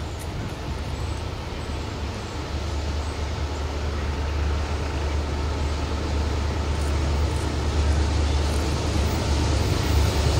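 Several diesel-electric freight locomotives approaching, a low steady engine rumble growing steadily louder as they near.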